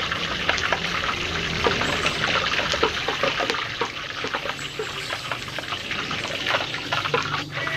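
Hot cooking oil ladled over a whole chicken hanging above a wok: a steady trickle of oil streaming off the bird and falling back into the wok, with scattered small crackles.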